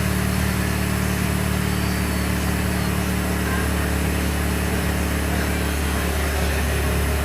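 A motor running steadily in the background: an unbroken low hum with no strikes or bursts.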